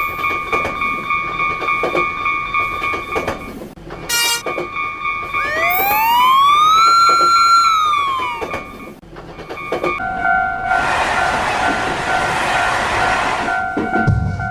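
Japanese level-crossing warning bell ringing in a steady "kan-kan" rhythm, about two strokes a second. Around the middle a horn-like tone rises in pitch, holds and falls away. In the last few seconds a lower-pitched crossing bell takes over while a train rushes past in a loud swell of noise.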